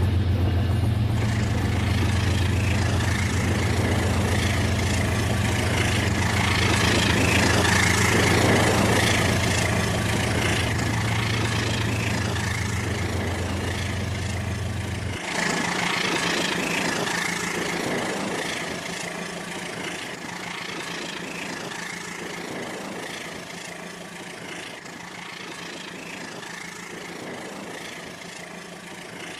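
Rail King battery toy train running, with a steady mechanical hum and hiss; the low part of the hum cuts off abruptly about halfway through.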